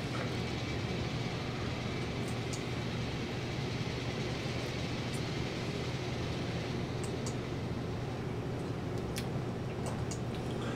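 Steady low hum with hiss, with a few faint, sharp mouth clicks from chewing pizza scattered through it.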